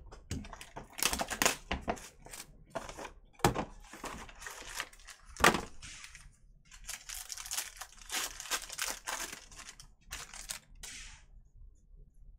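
Trading-card packaging being opened by hand: wrappers crinkling and tearing in bursts, with a few sharp knocks as the box and packs hit the table, loudest about three and a half and five and a half seconds in.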